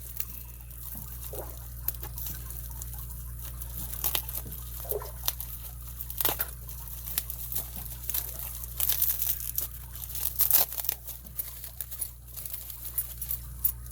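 Packaging being cut into and pulled open by hand: crinkling and tearing, with scattered small clicks and rustles.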